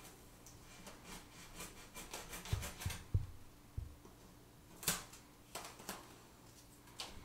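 Steak knife sawing through painted foam board in quick scratchy strokes, with a few soft knocks and sharp clicks as the piece is worked.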